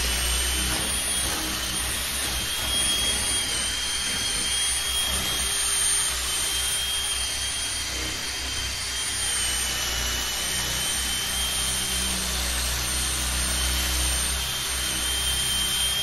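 Cordless drill turning a hole saw steadily through a wooden door, its motor giving a steady high whine over the grinding of the cut. The saw is pressed only lightly, so that the door won't swing, which keeps the cut slow.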